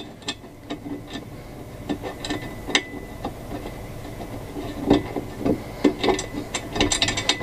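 Irregular small clicks and knocks of acorn nuts being run up by hand onto the studs of a metal console-vault plate inside a pickup's center console, growing busier near the end.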